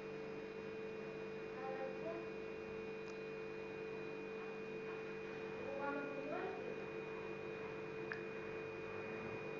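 A steady electrical hum with a fixed pitch, and faint voices in the background twice.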